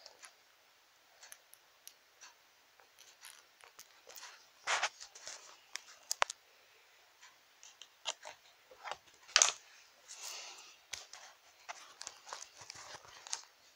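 Small plastic toy figures knocked and scraped against each other and a plastic playset by hand: scattered clicks, taps and short rustling scrapes, with the sharpest click about nine seconds in.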